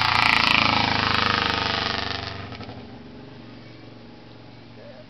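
A motor vehicle driving past: engine and tyre noise swelling to a loud peak in the first second or so, then fading away over the next two seconds.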